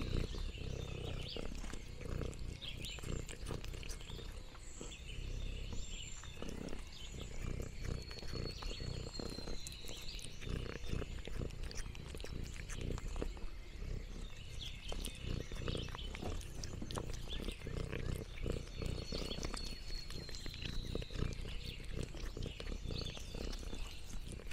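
A cat chewing and smacking on sliced meat right at a close microphone: a continuous run of wet clicks and soft low thumps.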